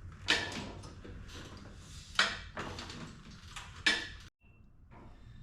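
Three sharp clunks of hard parts knocking together, a little under two seconds apart, as the portable generator is worked down onto its bolt-on foot.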